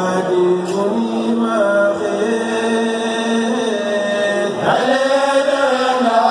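Mouride kourel: a group of men chanting religious verses together in long held notes. The pitch steps up early on, and a fresh phrase swells in about three-quarters of the way through.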